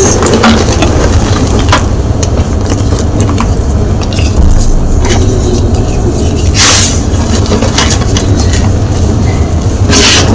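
Gym chalk being crunched close to the microphone: scattered crackles and crumbling over a constant low rumble, with louder crunches about two-thirds of the way in and near the end.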